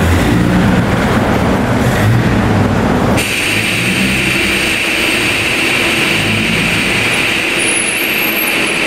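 Car engine running, with pitch that shifts; the sound changes abruptly about three seconds in.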